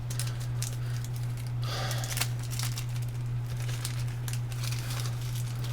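Short irregular clicks and rustles of small parts and wires being handled, over a steady low electrical hum.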